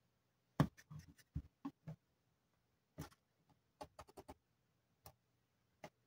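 Light, irregular clicks and knocks of a smartphone in a hard case being handled and set onto a plastic wireless charging stand, coming in short clusters.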